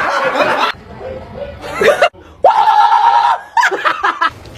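People laughing in short bursts, with one held, steady-pitched vocal sound lasting about a second in the middle.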